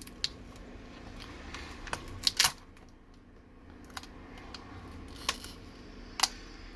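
Small sharp clicks and taps from handling an opened iPhone 6's housing while its glued old battery is pried loose, about half a dozen in all, the loudest two close together a little over two seconds in.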